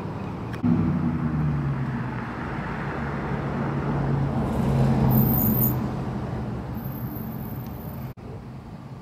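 A motor vehicle's engine running as it passes, with a steady low hum that grows to its loudest about five seconds in and then fades, breaking off abruptly near the end into quieter background.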